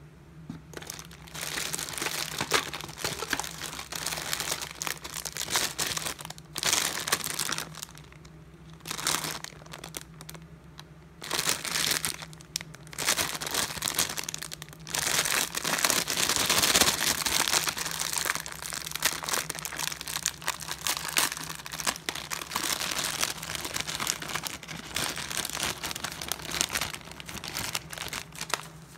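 Clear plastic candy packaging crinkling and rustling as hands work a pack of bottle-shaped powder candies open. It comes in bursts with a few short pauses.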